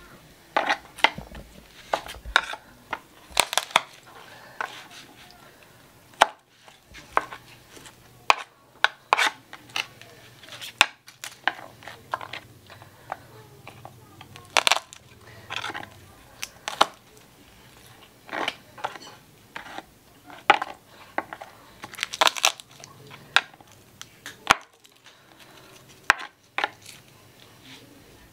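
A kitchen knife knocking on a plastic cutting board as garlic cloves are cut and peeled: irregular sharp taps, single and in quick clusters.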